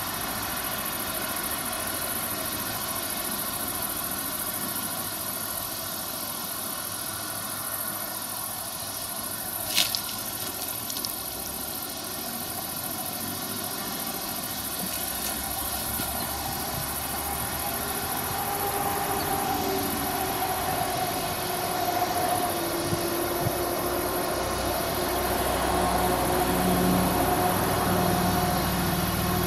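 John Deere combine harvester running while cutting and threshing wheat: a steady machine hum with several tones, growing louder in the second half as the machine comes closer. A single sharp click about ten seconds in.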